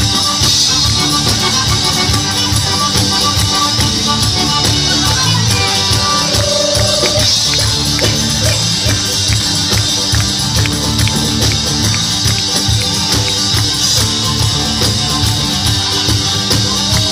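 Instrumental tarantella folk music with a fast, steady beat, tambourine jingles prominent.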